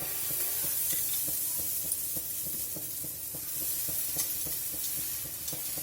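Uttapam batter sizzling on a hot pan, the hiss starting suddenly as the batter hits the hot surface, with light regular taps of the ladle as it is spread.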